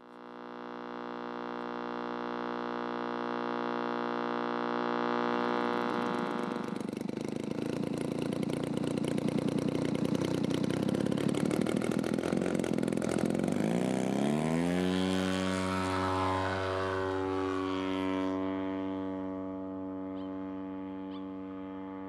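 Aircraft engine and propeller noise around a takeoff. It swells in, runs at a loud rushing roar through the middle, then a low engine note rises in pitch and holds steady as the noise fades toward the end.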